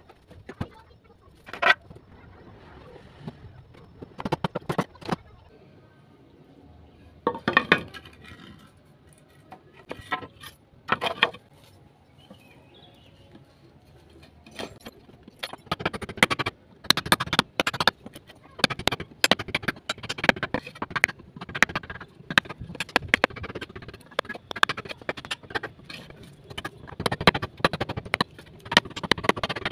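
Hammer blows on a wood chisel, cutting a notch into a wooden plank. A few scattered knocks come first, then a quick run of sharp strikes, about two or three a second, from about halfway on.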